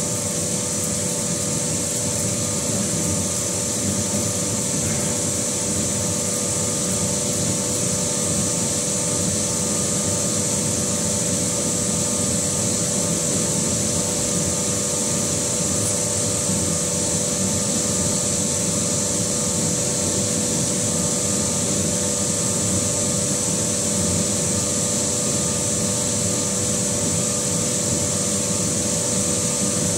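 CNC metal spinning machine running, turning a sheet-metal fan impeller shroud blank while the forming roller works it: a steady, unchanging hum and whine with a high hiss.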